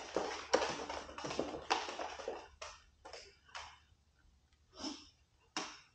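T-handle hex key turning a bicycle crank arm bolt. A quick run of short scraping clicks as the key is turned and regripped, thinning after about two and a half seconds to a handful of separate strokes.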